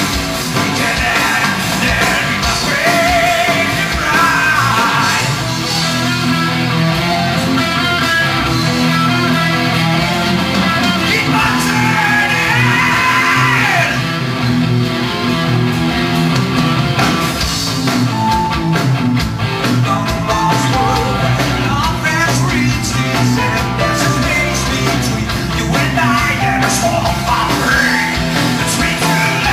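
Live prog rock band playing loudly: electric guitars, bass, drums and keyboards, with a singer's voice over the band in places.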